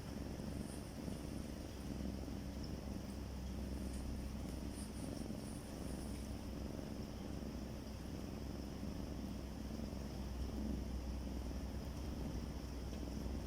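Domestic cat purring steadily as it breathes, a low continuous flutter.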